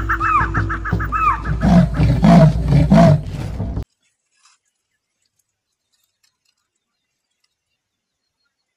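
Rapid bird-like chirping over a steady hum, then three loud, low animal calls about two seconds in. The sound cuts off abruptly a little after that, leaving silence.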